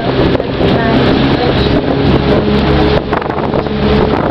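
Engine of a motorized outrigger boat (bangka) running steadily under way, with wind buffeting the microphone.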